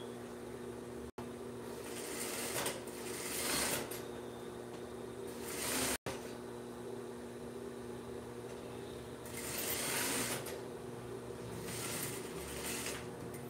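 Juki industrial straight-stitch sewing machine stitching horsehair braid onto sheer tulle in a few short runs, over a steady hum, with the fabric rustling as it is guided.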